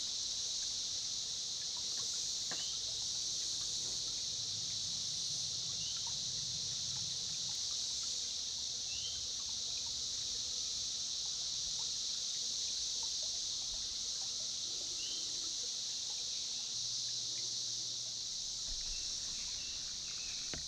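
A chorus of Brood X periodical cicadas buzzing in the trees: a steady, unbroken high drone, with a few faint short chirps over it.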